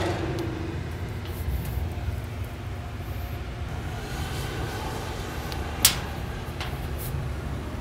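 Low, steady rumble of vehicles going by, with a pitched engine note fading away in the first second and a single sharp click about six seconds in.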